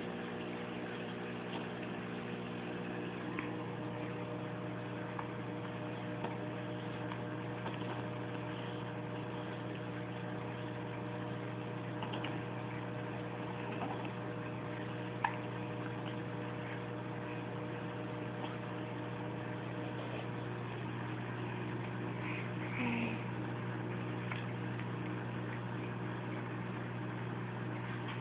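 Steady motor hum of a running ceiling fan, with a few faint ticks.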